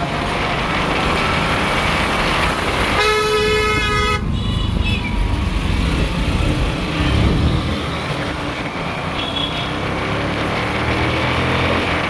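Busy road traffic with a steady rumble of engines and tyres, and a vehicle horn honking once for about a second, about three seconds in.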